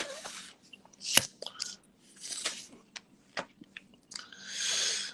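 A person chewing food close to the microphone: irregular wet chewing and mouth noises, with a sharp click about a second in and a longer hiss near the end.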